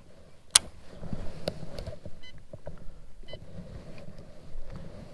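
Sharp clicks and knocks of a baitcasting rod and reel being handled in a kayak, the loudest a single click about half a second in. Two quick runs of fine ticking come near the middle, over a steady low rumble.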